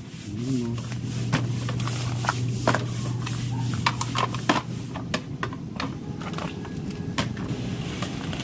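Cooked crabs' hard shells clicking and clattering as they are handled and set into a stainless-steel tray, in quick irregular sharp clicks over a steady low hum.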